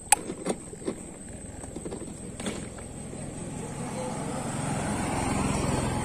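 Hard plastic wheels of a ride-on toy excavator and a toddler's sandals crunching over loose gravel. A few sharp clicks come first, then a rolling crunch that grows louder toward the end.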